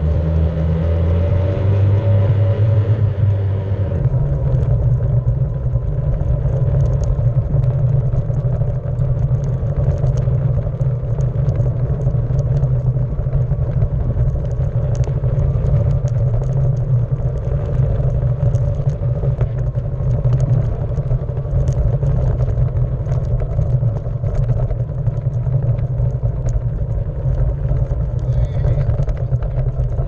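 A steady low rumble that changes character about four seconds in, with faint scattered ticks above it.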